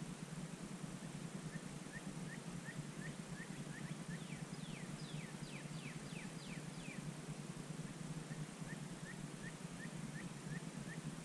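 Turkey calling: a run of short yelping notes, about three a second. In the middle comes a louder series of sharply falling notes, and near the end more short notes.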